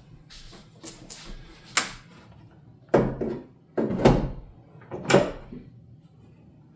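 Metal TV wall-mount brackets knocking and clanking against the mount's wall plate as a TV is lifted and hooked on: about five separate knocks, the three loudest between three and five seconds in, each with a short ring.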